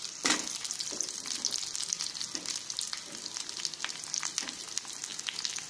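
Sliced onion, dried red chillies and garlic sizzling in hot oil in an aluminium kadai, with a steady hiss as they fry. A steel spoon stirring them clicks and scrapes against the pan, with a sharper knock about a quarter second in.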